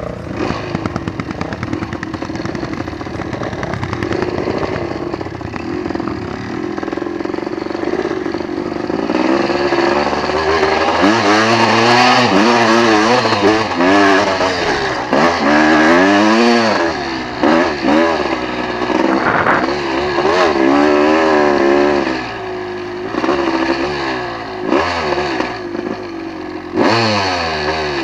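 Sport quad (ATV) engine under throttle. It runs fairly steadily at first, then from about ten seconds in revs up and down again and again.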